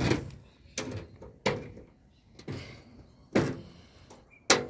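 About six sharp metallic snaps and knocks on a roller shutter's aluminium side guide as it is pop-riveted in place, each with a brief ring.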